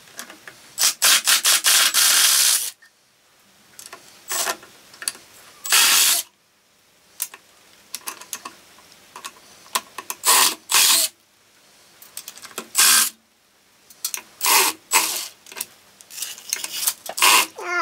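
DeWalt 18 V cordless impact driver hammering in several short bursts, the longest about two seconds near the start, as it backs screws out of a steel faceplate on a mallee burl.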